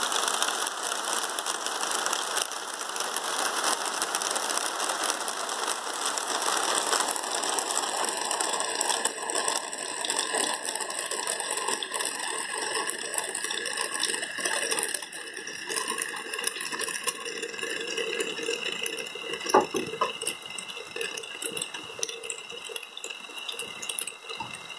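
Hail falling: a dense hiss of countless small impacts that thins out and grows quieter over the second half, with one sharper knock about twenty seconds in.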